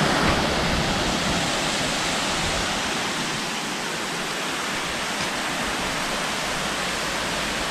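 Small bush waterfall pouring into a creek pool: a steady, even rush of falling water.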